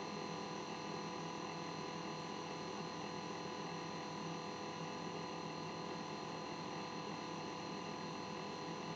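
Steady, even hum with several steady tones over a light hiss, from reef aquarium pumps and equipment running.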